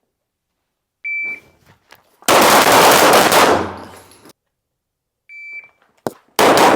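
Shot timer start beep about a second in, then a rapid string of pistol shots lasting about two seconds. Near the end a second timer beep is followed by a single shot and the start of another rapid string.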